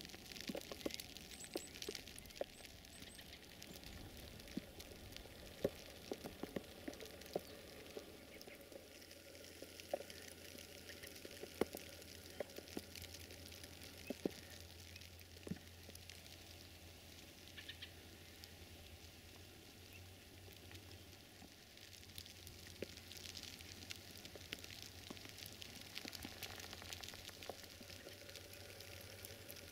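Faint patter of falling wet snow, with many small irregular ticks over a light hiss and a low steady hum.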